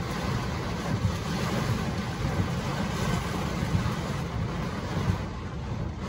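Heavy rain hitting a car's windshield and roof, heard from inside the cabin, over a steady low rumble of the car and wind. Now and then a sharper patter stands out.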